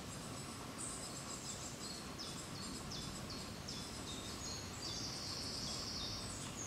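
A small songbird singing a run of short, high notes, about two or three a second, building to a longer, louder phrase near the end, over a steady woodland background hiss.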